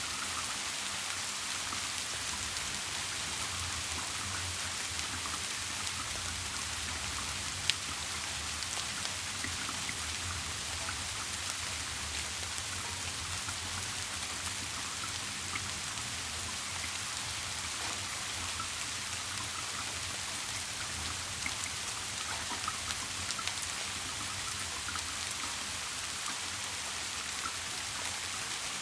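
Steady rain falling, an even hiss dotted with small drop ticks and one sharper tick about eight seconds in, with a faint low hum underneath.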